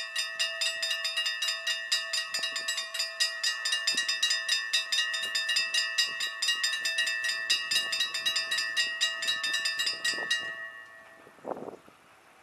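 Dutch level-crossing warning bells ringing in rapid, even strokes while the barriers lower. The ringing stops suddenly about ten and a half seconds in, once the barriers are down. A single short, lower sound follows about a second later.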